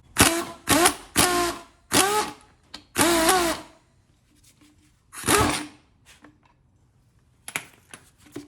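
Handheld power tool run in about six short trigger bursts, each a motor whine that bends up and down in pitch, with a few light clicks near the end.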